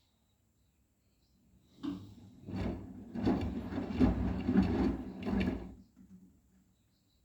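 Arçelik 9120M washing machine handled or moving: a string of uneven knocks and sliding rumbles lasting about four seconds.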